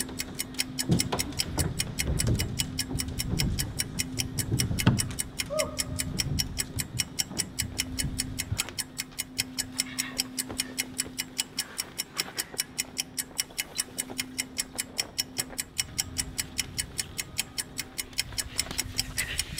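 Fast, even clock ticking, several ticks a second, as a countdown sound effect over a held low tone. Low thumps and rumble in the first few seconds.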